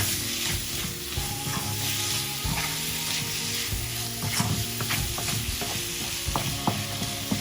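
Beef with onions and spice powders sizzling in a hot pan while a spoon stirs it, with frequent small scrapes and knocks of the spoon against the pan over a steady frying hiss.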